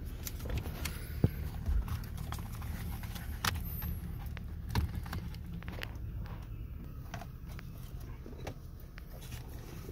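Scattered light plastic clicks and knocks from handling the steering column's clock spring and switch assembly, the sharpest about a second in, over a low steady hum.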